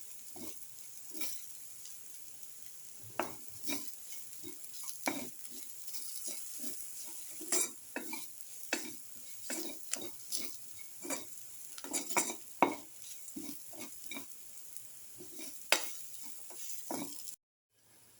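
Shallots, garlic, ginger and crushed black pepper sizzling in oil in a pan, stirred with a utensil that scrapes and knocks against the pan about once a second. The sound cuts off suddenly near the end.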